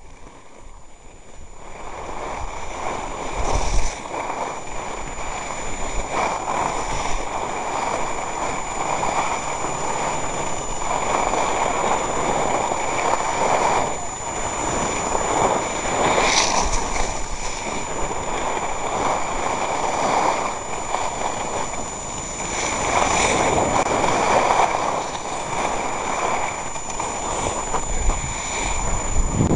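Skis hissing and scraping over packed snow while wind rushes across the microphone, a steady rushing that swells and eases every few seconds. A faint steady high tone runs underneath.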